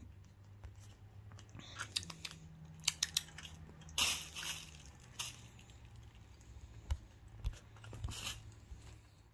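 Kitten eating from a bowl: irregular crunching and chewing, with the loudest crunch about four seconds in.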